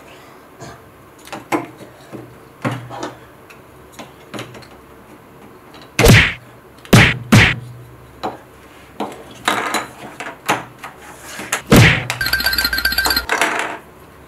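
Gravitrax plastic building pieces knocked and clacked onto a table and base plate as they are sorted and stacked, a string of irregular sharp knocks, the loudest four coming in the second half. Near the end a short, rapidly pulsing electronic tone.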